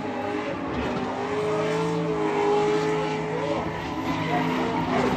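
Drift car's engine held at high revs, its pitch wavering a little, while the tyres skid.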